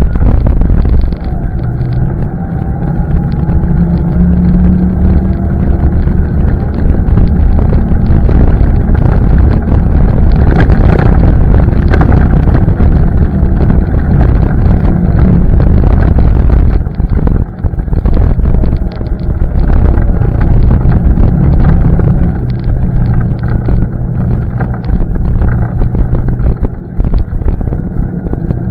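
ATV engine running under way, loud and continuous, its engine speed rising and falling with the throttle.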